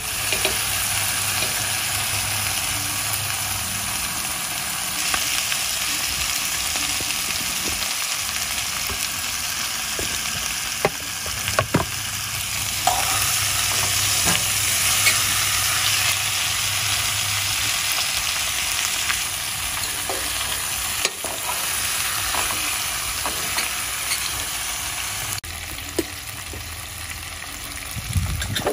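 Chicken feet sizzling as they fry in hot oil and burned curry, stirred and turned with a metal fork, with a few sharp clinks of the fork against the pan now and then.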